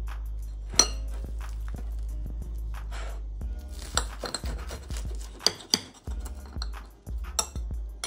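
A table knife cuts through a toasted sandwich and clinks sharply against a ceramic plate several times, over background music with a steady bass beat.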